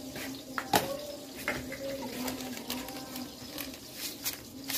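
Light clicks and knocks of plastic containers and a plastic bag being handled, the sharpest about three-quarters of a second in, over a steady low hum.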